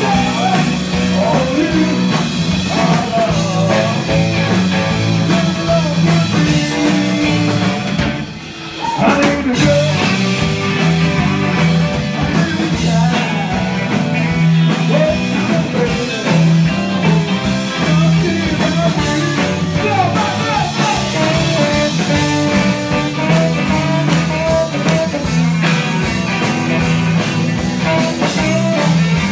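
Live rock and roll band playing: electric guitars, drums and upright bass, with a lead vocal. The band drops out briefly about eight seconds in, then comes back in.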